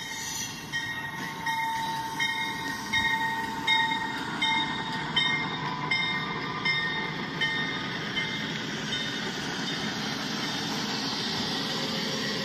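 Motorized LEGO train running on plastic track, its motor and wheels making a steady rolling sound that grows louder as the cars pass close. Over it a short ringing tone repeats about one and a half times a second, dying away about nine seconds in.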